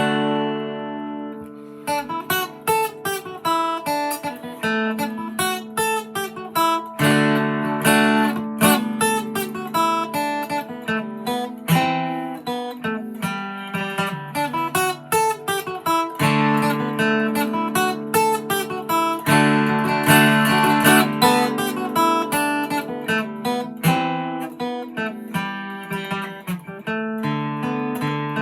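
Gibson J-45 acoustic guitar playing a fiddle tune in D, solo. A chord rings out at the start, then a quick, steady run of picked melody notes mixed with strummed chords from about two seconds in.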